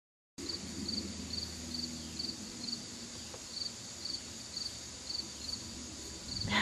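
After a moment of silence, crickets chirping steadily, about two chirps a second, over a constant high insect hum. A brief louder sound near the end.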